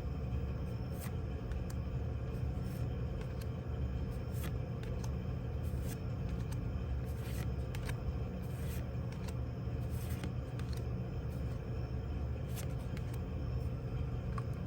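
Trading cards being handled and slid through the hands, a scattered run of short soft clicks and rustles, over a steady low background rumble.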